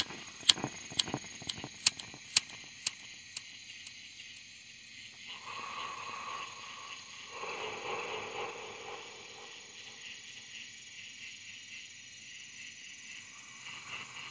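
Night insect chorus, crickets trilling steadily with a fast pulsing. Over the first few seconds a run of sharp clicks, about two a second, dies away, and near the middle come two brief lower sounds.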